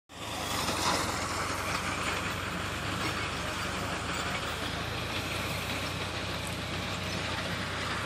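An engine running steadily: a constant low hum under an even wide noise, with no changes in speed.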